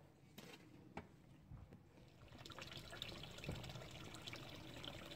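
Faint trickle of water into a small rock-edged garden pond, starting about two seconds in, after a few soft clicks.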